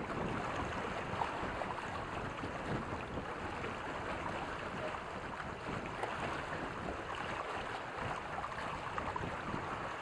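Lake water rushing and splashing past the hull of a Reynolds 21 catamaran under sail, a steady wash of noise.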